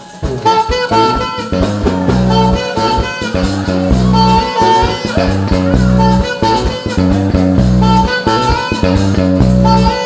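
Live band music: a saxophone playing a melody of held notes over an electric bass guitar line and keyboard.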